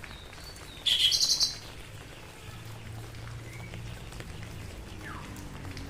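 A bird gives a loud, rapid chattering call about a second in, followed by a few fainter bird calls, over a steady hiss of rain.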